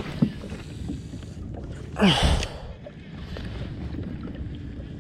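Rumbling wind noise on an action camera's microphone aboard a kayak. About two seconds in comes a short, loud vocal sound that falls in pitch.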